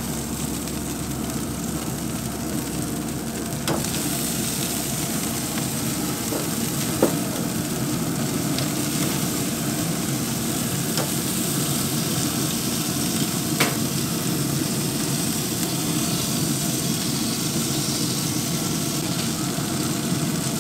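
Chicken sizzling on the grate of a Traeger pellet smoker: a steady hiss with a few faint pops.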